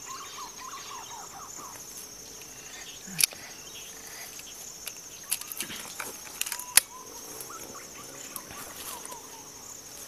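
Steady high-pitched buzzing of insects, with short bird chirps near the start. A few sharp clicks or knocks cut in, the loudest about two-thirds of the way through.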